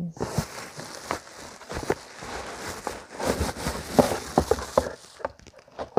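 Clear plastic wrapping crinkling and a cardboard box rustling and knocking as a massage pillow is pulled out of its packaging, with many small clicks; the handling dies down about five seconds in.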